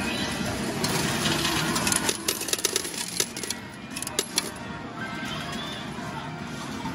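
Metal game medals clinking and dropping in a coin-pusher arcade machine, a quick run of clinks about two seconds in that thins out by four and a half seconds. Music and steady arcade din go on throughout.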